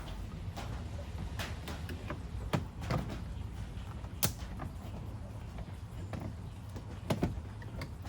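Scattered clicks and knocks of plastic interior door trim being handled and pressed into place on a van door, the sharpest about four seconds in and a short cluster near the end, over a steady low hum.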